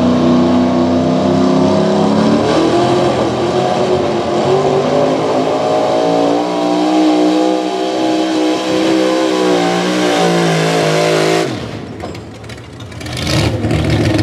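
Gasoline engine of an open-gas 4x4 pulling truck, a Chevrolet square-body pickup, running hard under load as it drags a pulling sled, its pitch wandering up and down through the run. About eleven and a half seconds in the throttle is let off and the engine sound drops away, ending the pull.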